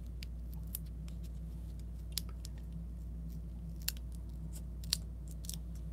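Small clicks and ticks of hands handling and pressing little paper die-cut pieces onto cardstock, a handful of sharp ticks spaced a second or more apart, over a steady low hum.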